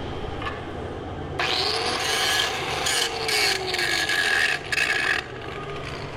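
Scraping and rubbing on the aluminium stick weld in several bursts, about four seconds in all with short breaks, cleaning off the heavy slag left by the rod.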